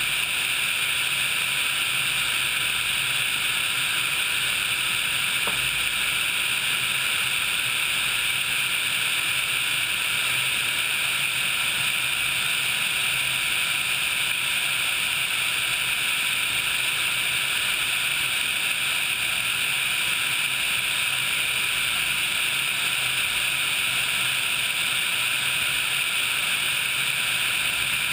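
Steady rushing noise of a Sikorsky HH-60 Pave Hawk helicopter in flight, its twin turboshaft engines and rotor blended with airflow over a microphone mounted outside the airframe, with a faint steady whine underneath.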